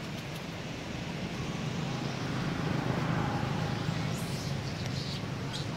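Low rumble of road traffic that swells a couple of seconds in and stays up, with a few faint, short high chirps near the end.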